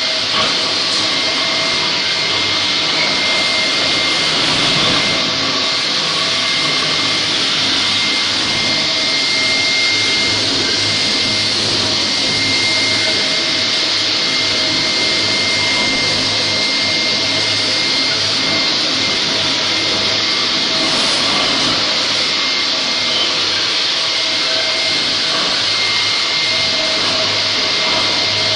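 Linax K-30ENV concrete floor grinder running steadily, its grinding head abrading the concrete, together with the rush of its dust collector drawing through the hose. A constant, even noise with a thin steady high whine over a low hum.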